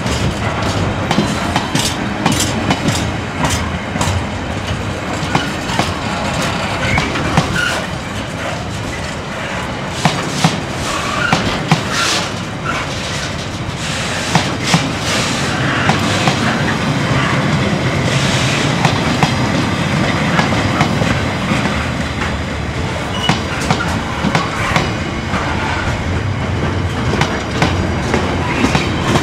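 Loaded container flat wagons of a Freightliner intermodal freight train rolling steadily past close by: a continuous rumble of wheels on rail with frequent irregular clicks and clacks as the wheels run over the track.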